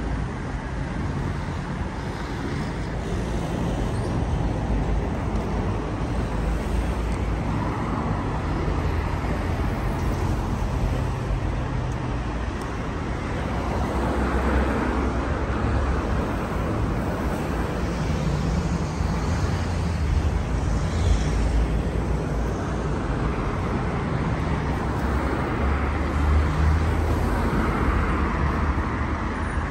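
Road traffic passing on a city street: a steady rumble of cars and a coach going by, swelling several times as vehicles pass close.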